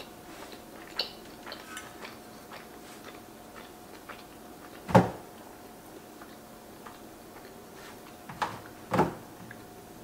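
Close-miked chewing of a mouthful of pasta with small mouth clicks. About five seconds in comes a sharp clack, the metal fork set down in an enamelled cast-iron pot, and two softer knocks follow near the end.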